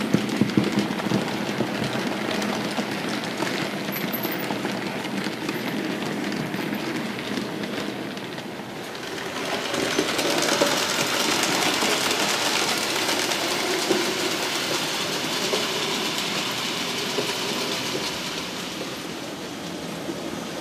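Märklin HO scale model freight train of open coal wagons rolling past on the track, its metal wheels clicking over the rail joints. About nine seconds in the sound dips briefly, then turns into a louder, steadier rolling hiss of model train wheels running on the rails.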